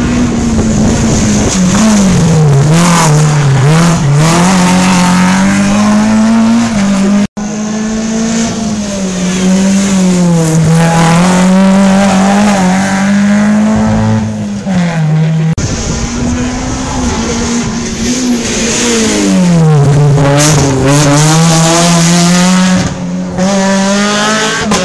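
Rally cars' engines at full throttle through a bend, loud and steady. The pitch dips on lift-off and braking, then climbs again on the power several times. The sound breaks off abruptly twice.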